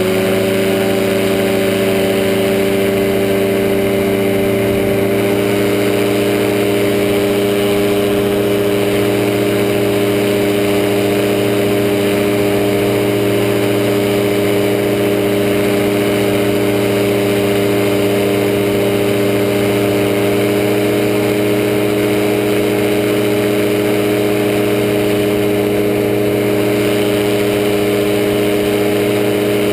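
Powered parachute's engine and pusher propeller running steadily in flight. Its pitch picks up at the very start, then holds level.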